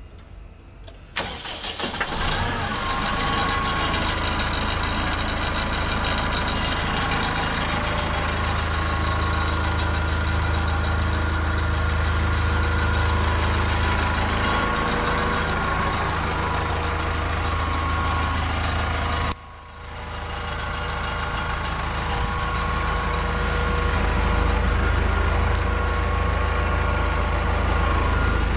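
2013 Morbark wood chipper's engine starting about a second in, then running steadily. About two-thirds through the sound cuts out abruptly and the engine comes back up to a steady run over a second or two.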